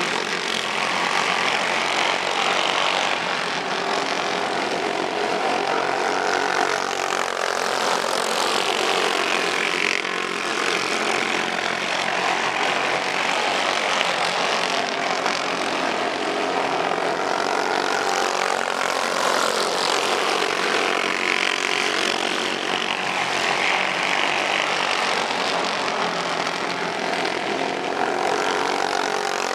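Several racing go-kart engines at speed, a dense buzzing whose pitch repeatedly rises and falls as the karts come off and back on the throttle through the corners.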